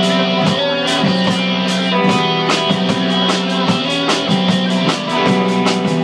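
Live rock band playing: electric guitars and bass over a steady drum beat with regular cymbal hits.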